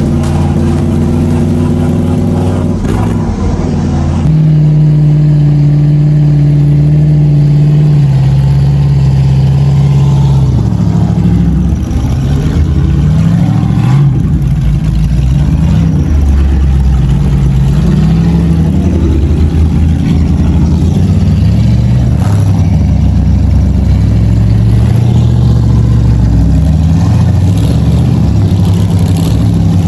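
Off-road rock crawler's engine running and revving up and down. It holds a fairly steady pitch for the first several seconds, with a shift about three to four seconds in, then rises and falls repeatedly in pitch.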